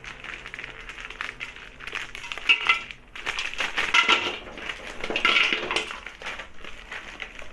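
Blocks of hard brown sugar candy dropped into a dry metal wok, clattering and rattling against the pan in several clusters, the loudest about halfway through.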